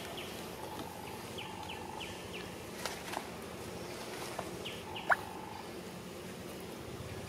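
Outdoor woodland ambience: a steady hiss with short, high falling chirps every second or so and a few brief steady whistles, typical of birds and insects. One sharp rising squeak stands out about five seconds in.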